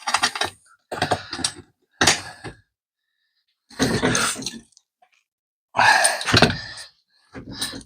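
Six short bursts of clunking and scraping from hand tools and screws being handled while a screw is worked in by hand.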